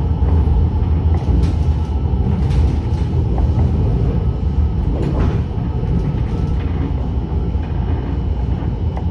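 A city tram running along its rails, heard from inside the car: a steady low rumble with a few faint clicks and rattles.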